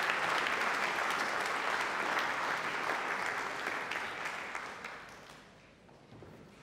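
Concert-hall audience applauding, the clapping dying away about five seconds in.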